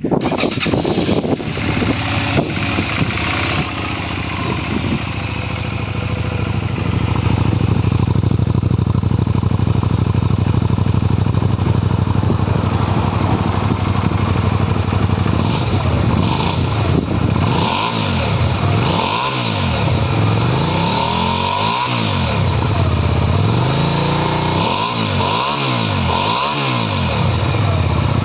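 Suzuki Gladius 400's V-twin engine firing up through an aftermarket muffler, idling steadily, then revved in a series of short throttle blips during the second half, each rising and falling in pitch.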